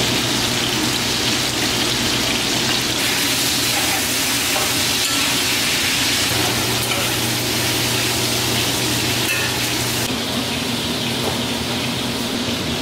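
Cubes of meat sizzling as they brown in a cast-iron skillet, a steady frying hiss that swells louder for several seconds in the middle, over a steady low hum.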